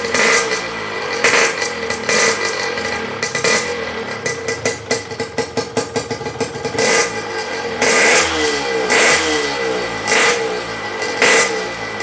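Yamaha RX-King single-cylinder two-stroke motorcycle with an aftermarket belekan exhaust, revved in short, loud throttle blips about once a second. The engine pitch sweeps up and falls back between blips, with a steadier stretch of lower revs in the middle.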